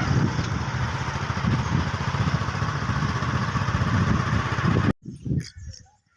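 A vehicle engine running steadily on the move, with rushing noise, cutting off abruptly about five seconds in.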